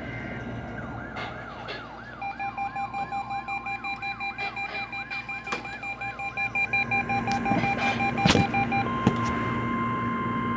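Weather alert radio receivers sounding their alarms for a NOAA Weather Radio required weekly test. There is a siren-like warble of about three sweeps a second, a fast beeping, and a steady warning alarm tone that carries on after the others stop, with one loud click about eight seconds in.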